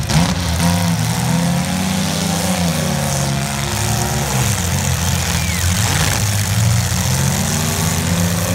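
Demolition derby cars' engines running in the arena, a steady low drone with revs rising and falling.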